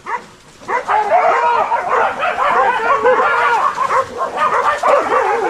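A pack of boar-hunting dogs yelping and barking together, many voices overlapping, in full cry during the chase; it breaks out about a second in after a brief lull.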